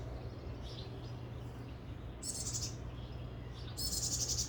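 A small bird's high, rapid chirping, in two short bursts of about half a second each, about two and four seconds in. A steady low hum runs underneath.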